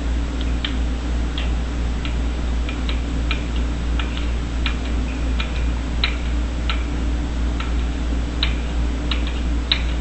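Sharp, irregular clicks, about one or two a second, from an African grey parrot's beak as it picks at and chews its food, over a steady low hum.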